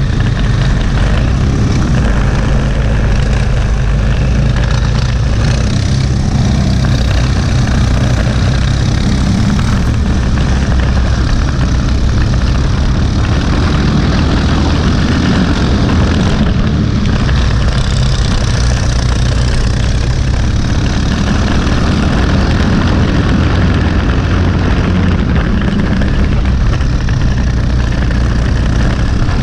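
Briggs & Stratton LO206 single-cylinder four-stroke kart engine running hard at racing speed, heard onboard from the kart itself, with a steady loud drone.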